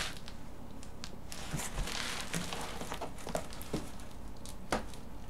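Scattered light knocks, scrapes and rustles of a large cardboard box being handled and turned over.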